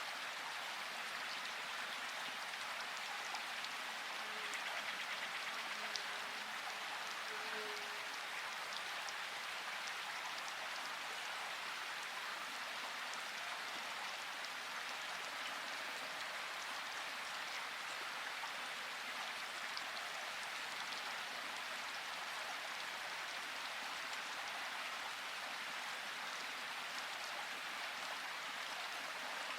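Steady rain falling, an even hiss with the odd separate drop ticking through it.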